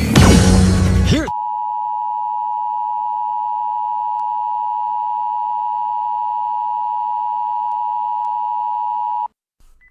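Emergency Alert System attention signal: a steady, high-pitched electronic tone held for about eight seconds, then cutting off abruptly. A loud, noisy burst of sound plays before it during roughly the first second.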